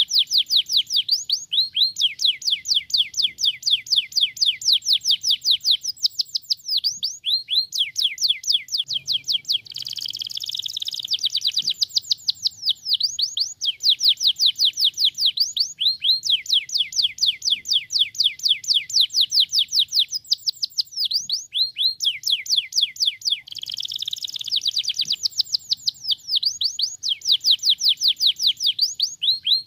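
Domestic canary singing: long trills of rapid, repeated high notes that each sweep downward, about five a second, broken twice by short stretches of denser, jumbled warbling.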